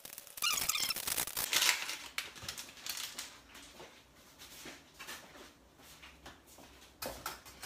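A packet of palabok sauce mix rustling and crinkling as the powder is shaken out into a saucepan, for about the first three seconds. After that it is mostly quiet, with a few faint small clicks.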